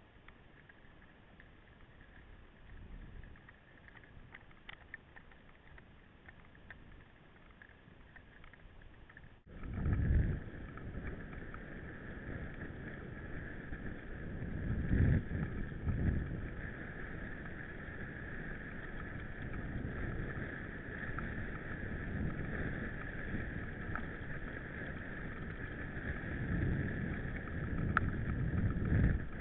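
Riding noise from a mountain biker's camera: a steady rushing hiss with wind buffeting the microphone in low gusts. It jumps much louder about a third of the way in.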